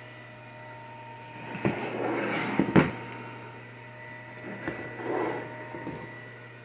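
Backpack fabric rustling and knocking as the bag is handled, in two spells about two and five seconds in, with a sharp click near three seconds. A faint steady hum runs underneath.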